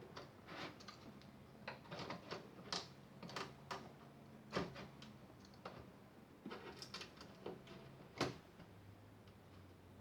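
Irregular small clicks and taps of a screwdriver driving screws into a plastic boombox cabinet as the case is handled, with a louder knock about halfway through and another near the end.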